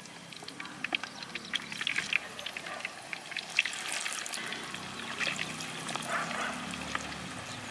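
Masala-coated fish pieces deep-frying in hot oil in a clay pot, the oil sizzling with a steady stream of small crackles and pops.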